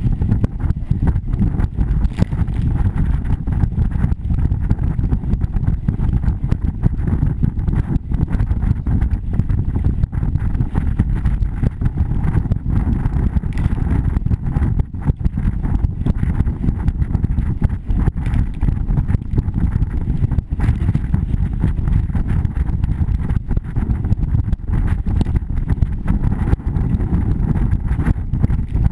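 Wind buffeting the microphone of a hull-mounted camera on a small racing sailboat under way, over water rushing and splashing past the hull. A steady, loud rumble that flutters constantly.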